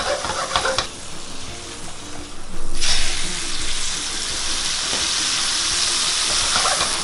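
A steak searing in hot oil in a frying pan: a quieter sizzle with a few clicks at first, then a loud sizzle that starts suddenly about three seconds in and runs on steadily.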